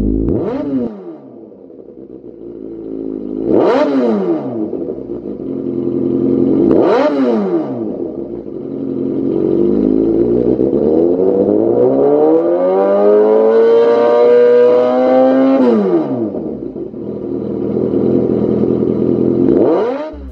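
Kawasaki Z800 inline-four engine running at standstill through a Lextek CP8C carbon slip-on silencer, idling between quick throttle blips. It is blipped four times and revved once for a longer, held rise in the middle before dropping back to idle.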